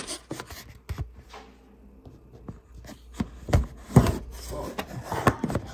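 Handling noise as a Shure SM7B microphone is fitted onto a stand: scattered clicks and sharp knocks with some rustling. The loudest knocks come about three and a half to four seconds in, and another near the end.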